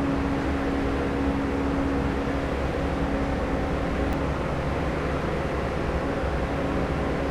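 Steady machine hum: a constant low drone over an even whir, unchanging throughout.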